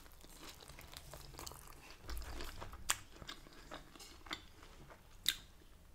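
A person biting into a Yorkshire pudding filled with mashed potato and sausage and chewing it: quiet wet mouth clicks and soft crunches, with two sharper clicks, one about halfway and one near the end.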